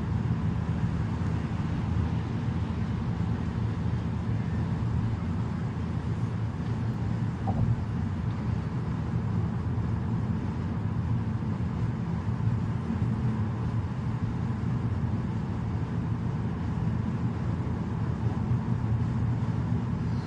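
Steady low rumble of tyres and engine heard inside a car cruising on a highway, with a faint steady whine above it.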